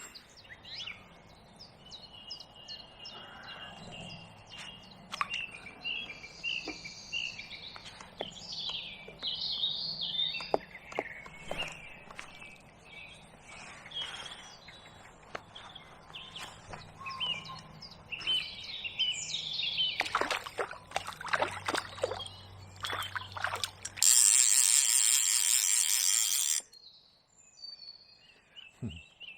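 Songbirds singing and chirping again and again, over a faint steady low hum. Near the end a loud rushing hiss lasts about two and a half seconds and cuts off suddenly.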